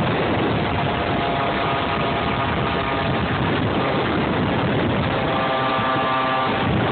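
Wind rushing over the phone's microphone while a Gilera NRG MHR Replica 50cc two-stroke scooter is ridden. The engine's high steady note comes through in two stretches, about one second and five seconds in. The scooter runs a Polini For Race exhaust, and its tuning and carburetion are off.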